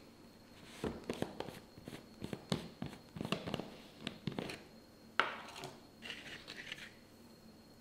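Plastic screw lid being twisted off a plastic tub, a run of small clicks and scrapes, then a sharper snap about five seconds in as the lid comes free. A brief crinkling follows as a hand reaches into the tub.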